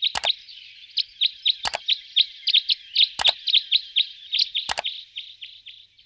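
Two-barred crossbill calling: a fast, steady series of short high chirps, about four a second, with a sharp click about every second and a half.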